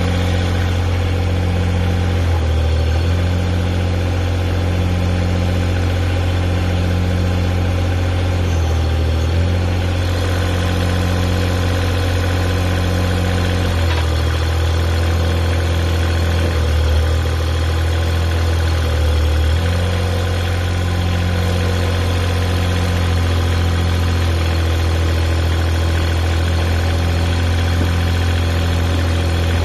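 Engine of a homemade backhoe-excavator running steadily near idle, its note dipping briefly several times as if taking load.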